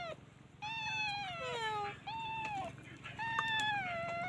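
Kittens meowing: a run of about four high, drawn-out meows that each fall slightly in pitch, two of them overlapping at different pitches about a second in.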